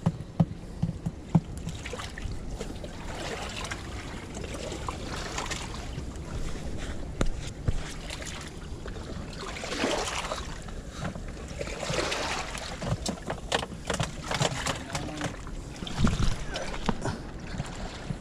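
Wind rumbling on the camera microphone, with scattered clicks, knocks and brief rustles as fishing gear and a bait bucket are handled.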